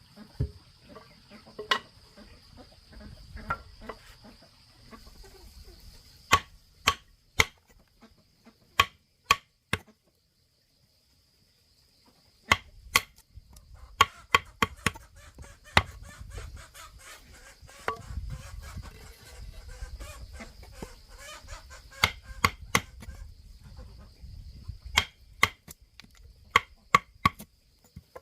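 Sharp knocks like hammer blows, coming in quick runs of two or three about half a second apart, over a steady high insect drone. The sound drops out for a couple of seconds about a third of the way through.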